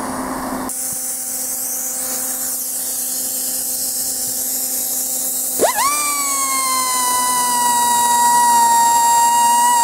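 A die grinder with a carbide burr spins up a little past halfway, its pitch sweeping sharply up, then settles into a steady high whine that wavers slightly as the burr grinds the bore of a steel shaft coupling. Before it, an even hiss.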